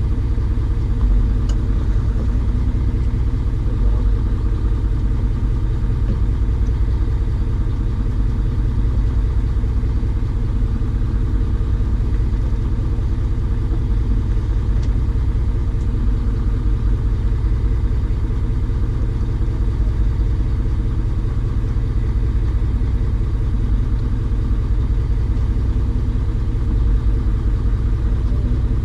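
An engine running steadily at a constant speed, a low even rumble.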